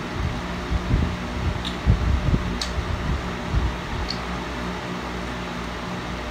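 Electric fan running with a steady whir, with a few soft low bumps and small clicks while someone chews food close by.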